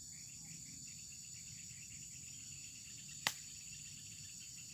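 Steady chorus of insects such as crickets, several high-pitched tones held together with a faint pulsing beneath, and one sharp click about three seconds in.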